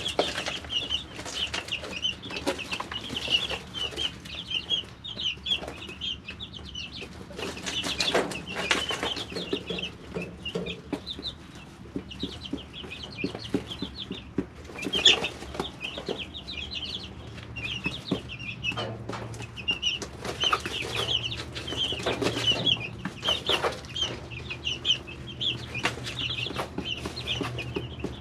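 Three-week-old chicks peeping continuously in a brooder: many short, high chirps overlapping, with scattered clicks and taps and a sharper knock about 15 seconds in. A faint low hum runs beneath.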